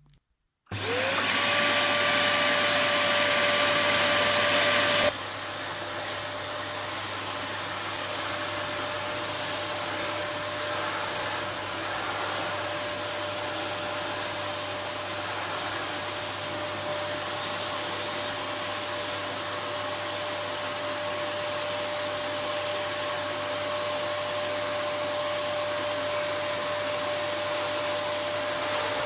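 Gtech CY01 bagged cylinder vacuum cleaner's 1600-watt motor switching on and spinning up with a quickly rising whine, then running steadily. About five seconds in its sound drops suddenly to a quieter, steady running note.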